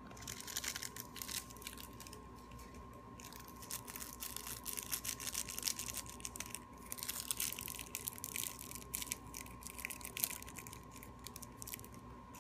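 A cat's fur brushing and rubbing against the phone's microphone as the cat presses up to the camera. It makes close crackling and rustling in uneven spurts, pausing briefly twice, over a faint steady hum.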